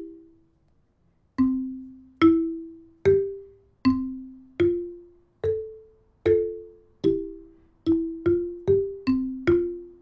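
Music: a slow melody of single struck, ringing notes on a mallet-percussion instrument, each note fading out before the next. There is a short pause about a second in, and a few later notes are struck as two-note chords.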